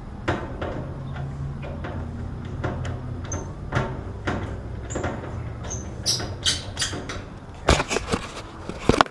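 Irregular clicks, rattles and metallic knocks of handling an air conditioner's sheet-metal access panel and its screws, over a steady low hum that stops near the end. The clicks get sharper and brighter about six seconds in, and two hard knocks come near the end.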